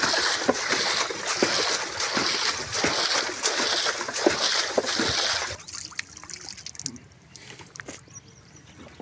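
Rainwater being bailed by hand out of a wooden boat and flung overboard: a quick run of splashes, about two a second, that stops about five and a half seconds in.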